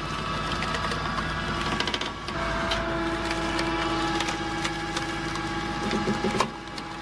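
Homemade firewood processor running: a steady mechanical hum with frequent clicks and knocks, which changes about two seconds in and drops in level near the end.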